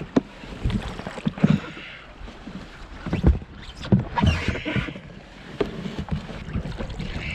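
Paddle strokes from an Oru Coast folding kayak: the blades splash in the water every couple of seconds, with irregular low knocks and thumps from the boat.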